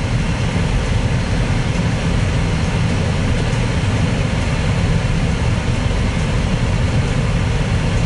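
Steady road noise inside a Jeep's cabin as it drives along a snow-covered road: a low, even rumble of engine and tyres with a hiss over it.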